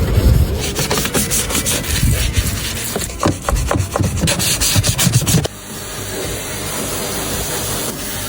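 Rapid rasping, scraping strokes, like a file or brush worked back and forth. They stop suddenly about five and a half seconds in, leaving a steady hiss.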